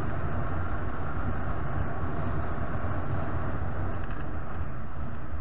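Motorcycle on its stock exhaust cruising steadily at about 108 km/h, the engine's even hum mixed with wind and road noise.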